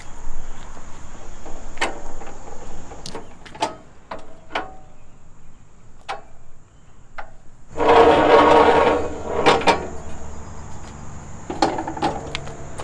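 Folding metal entry steps of a truck camper pulled out from under the rear and let down, with a loud rattling clatter about eight seconds in and a few clunks as they settle; scattered knocks and steps come before it.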